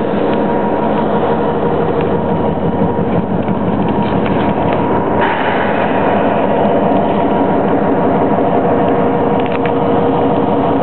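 EMD GP38 diesel-electric locomotive idling: its 16-cylinder two-stroke 645 diesel runs at a steady, even idle. The sound grows brighter about halfway through.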